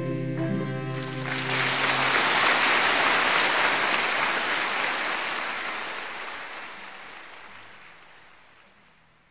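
The song's last sustained notes end about a second in, and a wash of ocean surf swells up and then slowly fades away almost to silence.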